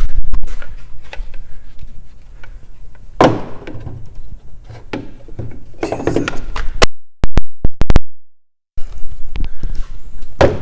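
Handheld phone microphone being carried and moved about, with rumbling handling noise and footsteps, and a few dull thuds, the loudest about three and six seconds in. The sound cuts out for about two seconds a little past the middle.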